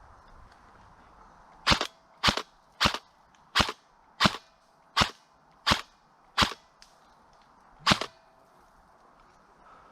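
Airsoft gun fired in single shots, nine sharp snaps: eight about two-thirds of a second apart, then one more after a short pause.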